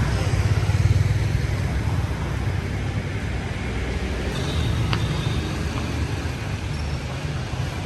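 Street traffic rumble, a low steady drone of passing vehicles that swells to its loudest about a second in.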